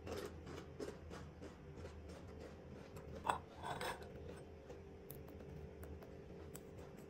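Light clicks and rustles of crisp wafer roll sticks being picked up and tapping against each other and a ceramic dish, with one sharper click about three seconds in. A steady low hum runs underneath.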